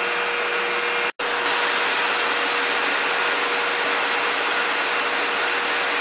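Steady machinery and ventilation noise in a destroyer's engineering spaces underway: an even, loud rush with a steady hum running through it. It cuts out for an instant about a second in, then resumes unchanged.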